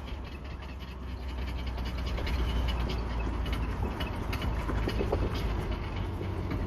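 Mercedes-Benz W123 300D making a steady low rumble overlaid with a rapid, irregular run of clicks and rattles, the noises its owner calls terrible.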